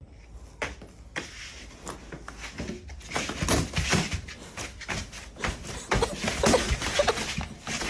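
A long cardboard box rustling, scraping and bumping as two people crawl along a carpeted floor inside it. The noise is irregular rustles and knocks, sparse at first and denser and louder from about three seconds in.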